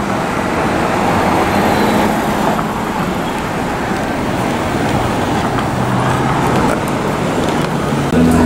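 Steady city street traffic noise: passing cars and engines.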